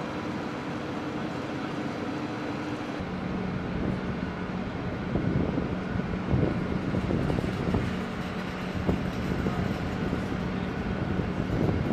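Steady mechanical hum over a low, uneven rumble. About three seconds in, at a cut, the hum drops in pitch and the rumble grows louder.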